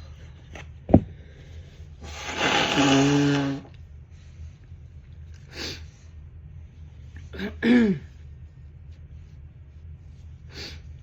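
A person blowing their nose hard, set off by dust: one long honking blow of about a second and a half starting two seconds in, then a shorter double blow near the eighth second, with sniffs in between. A sharp click comes about a second in.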